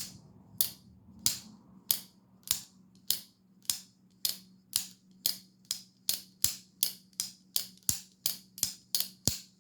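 Microtech Amphibian folding knife, freshly fitted with ceramic pivot bearings, being flicked open and shut over and over: a string of sharp metallic snaps as the blade swings and locks. The snaps come about one every half second at first and quicken to nearly three a second.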